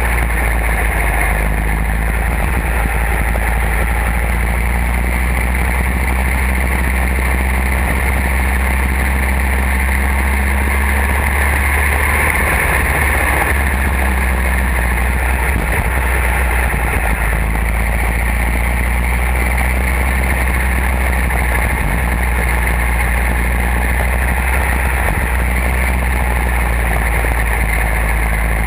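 A go-kart's engine running under racing load, heard from a camera mounted on the kart: a loud, steady drone with only small changes in pitch.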